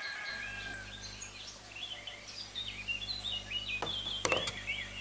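Birds chirping and calling in a busy outdoor chorus, with a low steady hum coming in just after the start and two brief clicks about four seconds in.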